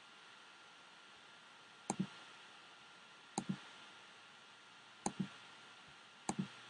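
Computer mouse button clicking four times about a second and a half apart, each click a quick press-and-release pair, over a faint steady hiss.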